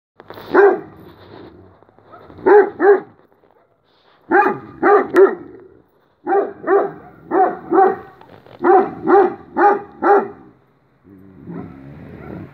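A dog barking in short bursts of one to four barks, with pauses between them, about fourteen barks in all.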